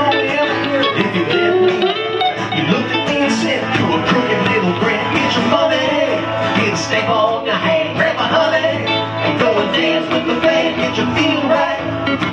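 A live band plays a country rock song, with acoustic guitar and saxophone and a singing voice over it.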